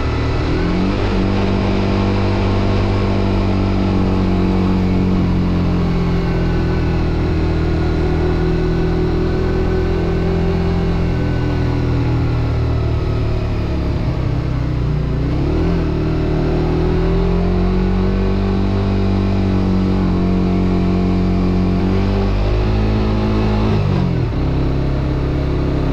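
Suzuki GSX-R125's single-cylinder engine running under way. The revs sag and climb again about halfway through, then drop sharply and pick up again near the end.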